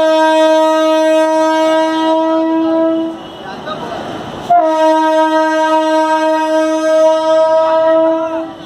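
Train horn sounding two long blasts of about three and four seconds, each a steady single note that starts a touch higher and settles, with a short gap between.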